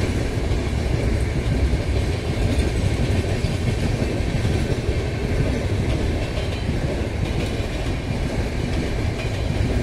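Passenger train coaches rolling steadily across an arched masonry bridge: a continuous, even rumble with fast clatter of wheels over rail joints.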